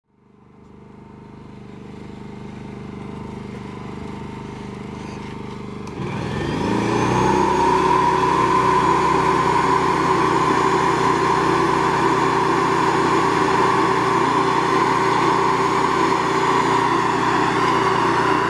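Small gasoline engine on the ThawRig trailer running steadily, fading in. About six seconds in, a second motor spins up with a rising whine and settles into a louder, steady drone.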